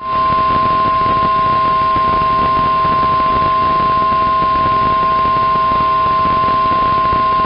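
Weather radio warning alarm tone: a loud, steady single tone near 1050 Hz with a fainter lower tone beneath it, over radio static. It alerts receivers that a severe thunderstorm warning message follows.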